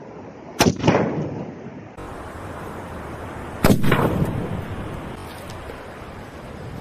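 Firecracker exploding against a soft-drink can, a sharp bang with a quick second crack and a short fading tail; a second loud bang follows about three seconds later. Wind and surf noise run underneath.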